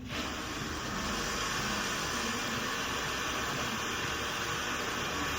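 Steady, even rushing hiss with a low rumble beneath, holding one level with no distinct events.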